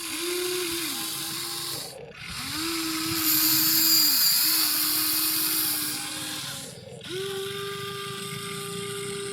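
Electric gear motors of a radio-controlled toy excavator whining in four separate runs, each rising in pitch as it starts and falling as it stops, with a hissy grinding of the gears loudest in the middle.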